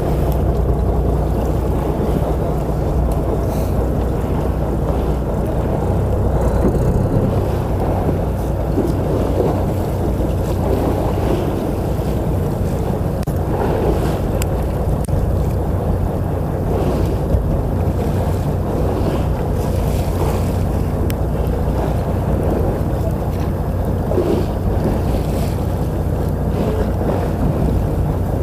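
Fishing boat's engine running steadily, with wind on the microphone and waves against the boat.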